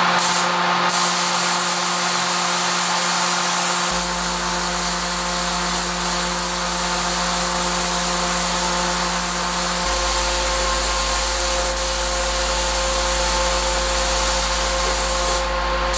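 Gravity-feed HVLP spray gun hissing steadily as compressed air sprays sealer, over a steady machine hum. The low part of the hum shifts twice.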